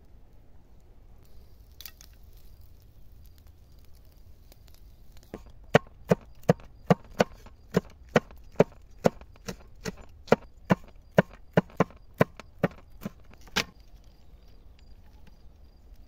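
A large broad-bladed knife chopping green chili peppers on a wooden cutting board: about twenty sharp knocks of the blade on the board, two or three a second, starting about a third of the way in and stopping shortly before the end.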